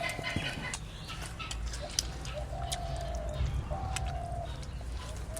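A hen calling: three short, level, drawn-out calls, with a few light clicks between them.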